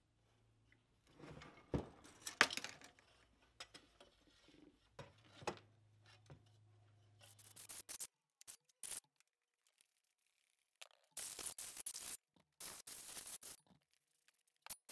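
Cast metal end bell of an old 5HP AJAX single-phase electric motor being worked off its housing, with several metal knocks and clinks, the loudest about two seconds in. Later come bursts of rough scraping and rubbing as the inside of the removed end bell is cleaned out.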